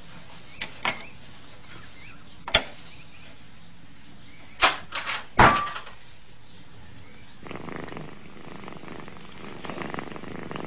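A cat's puzzle box being worked: several sharp clicks and knocks of its latch and door, the loudest about halfway through. Then, from about two-thirds of the way in, a cat purring steadily.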